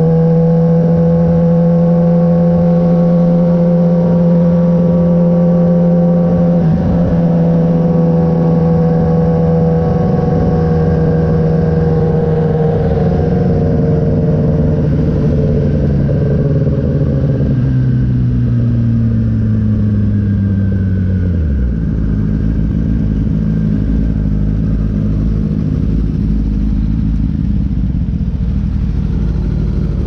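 Kawasaki ZX-10R's inline-four engine running at steady cruising revs, then the revs fall gradually as the bike slows and drop to a steady idle about two-thirds of the way through.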